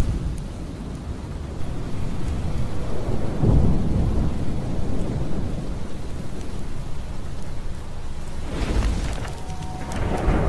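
Sound effects of a blazing fire in an animation: a steady rushing hiss with deep rumbles that swell about a third of the way in and again near the end.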